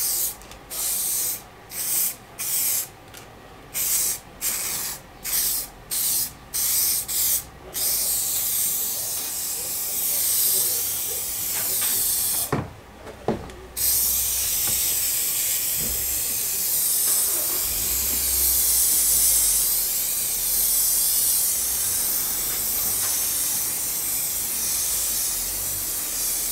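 Aerosol can of spray adhesive spraying: first a string of short bursts, then long continuous spraying from about eight seconds in. A brief pause about halfway through holds a couple of light knocks.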